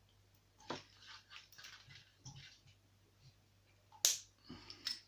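Key being slid into a Citroen Relay / Peugeot Boxer / Fiat Ducato ignition lock cylinder and turned, making small metallic clicks and rattles, with one sharp click about four seconds in.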